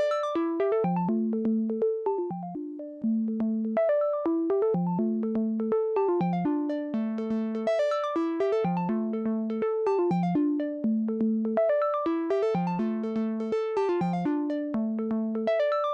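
Behringer SY-1 Syncussion analogue drum synthesizer played dry, sounding a sequenced run of short pitched synth-percussion notes, several a second, in a melodic phrase that repeats every few seconds.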